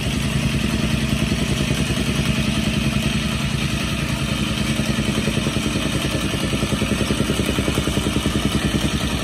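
A small engine running steadily at idle, with an even, rapid pulse that does not change.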